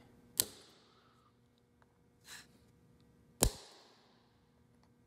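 Two sharp metallic strikes of a steel center punch marking an aluminum plate, about three seconds apart, each ringing briefly; the second is the louder.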